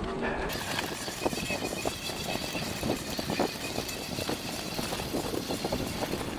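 Fat-tyre Cyrusher Ranger e-bike ridden over a bumpy grass and dirt field track: steady tyre and riding noise with many small rattles and knocks from the bike, and a faint steady high tone.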